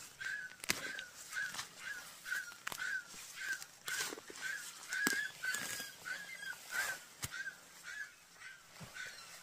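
A short animal call repeated steadily, a little more than twice a second, with scattered sharp clicks and knocks.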